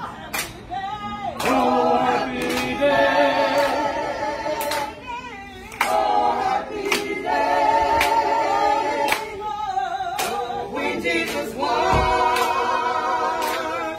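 A group of voices singing unaccompanied in long held phrases, with sharp hand claps about once a second.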